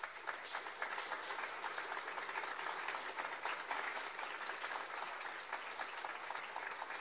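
Audience applauding steadily, a dense even clapping that begins as the music stops.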